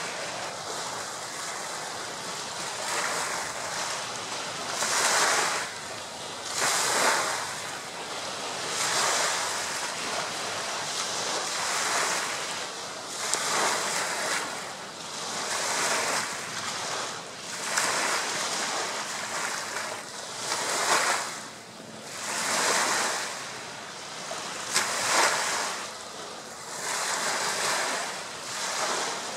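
Small lake waves breaking and washing up the beach, one surge every two seconds or so.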